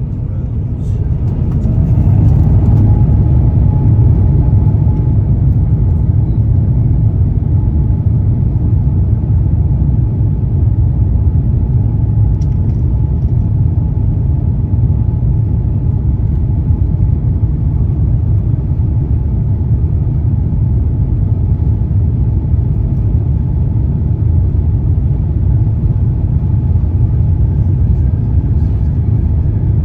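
Rolls-Royce Trent XWB engines of an Airbus A350-900 spooling up to takeoff thrust, heard from inside the cabin: a whine rises and the sound grows louder over the first two seconds, then holds steady over a heavy low rumble of the takeoff roll.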